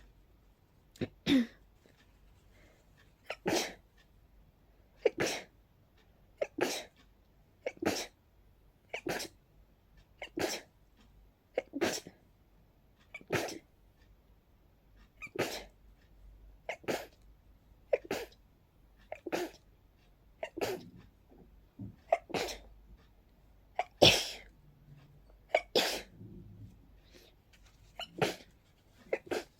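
A person sneezing over and over in a rapid sneezing fit: about twenty sharp sneezes, one every second or so, with only brief pauses between them.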